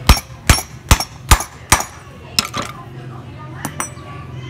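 Five sharp metal knocks, about two and a half a second, then a few lighter clinks: a metal tube driven down over a power-tool armature's shaft to seat a new ball bearing.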